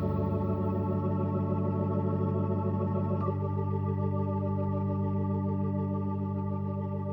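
Sustained organ-voice keyboard chords with a slight wavering, changing chord once about three seconds in and slowly fading as the closing chords of the song.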